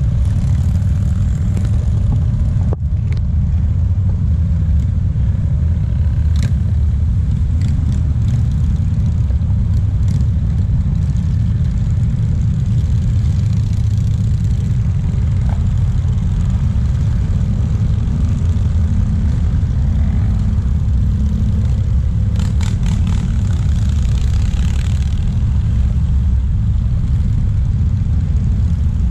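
Steady low rumble of a column of motorcycles riding past on a highway, mixed with car and truck traffic, with a few brief higher-pitched engine notes over it.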